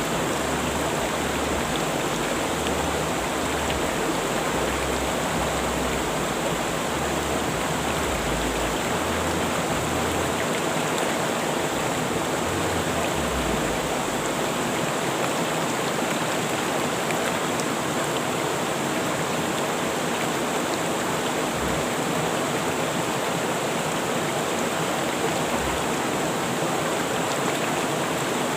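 River water rushing steadily over its bed: a dense, unbroken rush.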